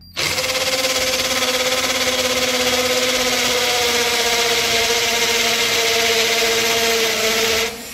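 Stilmax STL5800F cordless hammer drill running in hammer mode, drilling into a plastered masonry wall: a loud, steady motor whine with a dense hammering noise, its pitch sagging slightly. It starts just after the beginning and stops shortly before the end. The bit goes in without trouble, with little pressure on the drill.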